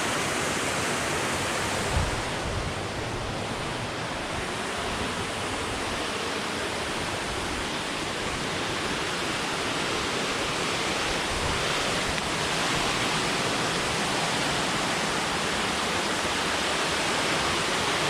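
Waterfall rushing steadily, a close, constant roar of falling water. A brief low thump about two seconds in.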